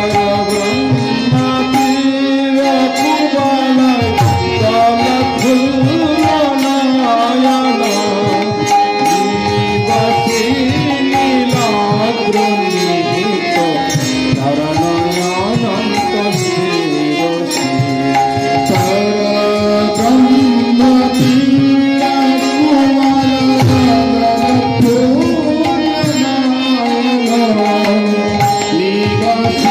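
Bengali devotional kirtan: a male voice sings a hymn melody over the steady held chords of a harmonium. A mridanga drum and kartal hand cymbals keep a constant beat.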